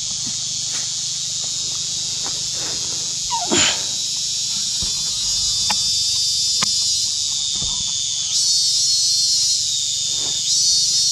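A loud, steady, high-pitched insect chorus. There are a few faint clicks and a brief falling squeal about three and a half seconds in. The chorus changes texture about eight seconds in.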